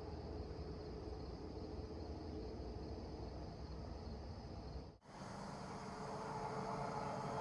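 Insects trilling steadily over faint outdoor ambience. The sound breaks off for an instant about five seconds in and then carries on a little louder.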